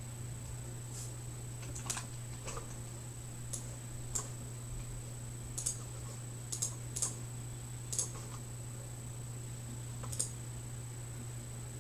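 About a dozen light, irregular clicks and taps, like a computer keyboard or mouse being used, over a steady low electrical hum.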